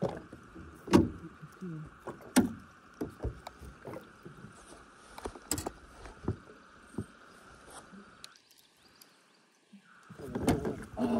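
Sharp knocks and thumps of gear against a small fishing boat, the loudest about one and two and a half seconds in, and water splashing as a landing net scoops a fish over the side; voices come in near the end.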